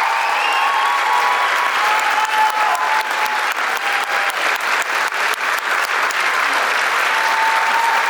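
Audience applauding: a dense, steady patter of clapping, with a few faint held musical notes under it.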